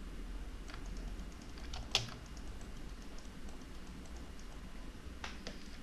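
Scattered clicks of a computer keyboard and mouse, with the sharpest click about two seconds in and a few more near the end, over a faint low hum.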